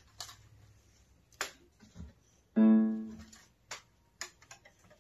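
A single low keyboard note is struck about halfway through and rings out, fading over about a second. A few short, sharp clicks come before and after it.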